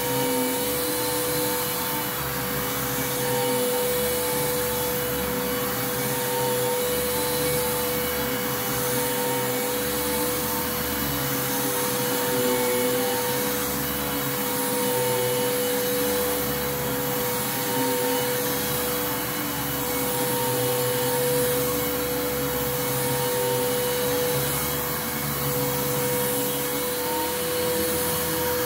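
Bissell Lift-Off Revolution Turbo upright vacuum cleaner running on a carpeted rug: a steady motor whine over a constant rush of air, with a low rumble that swells and fades about every two seconds as the vacuum is pushed back and forth.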